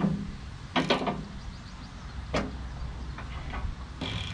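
Kioti CX2510 compact tractor's diesel engine running steadily, with four sharp knocks at uneven intervals.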